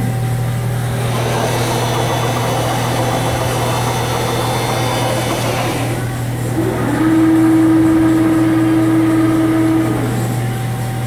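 Cincinnati Milacron gantry CNC mill running under power: a steady low machine hum throughout, with a hiss and high whine in the first half, then a drive motor whine that rises about two-thirds of the way in, holds for about three seconds and falls away.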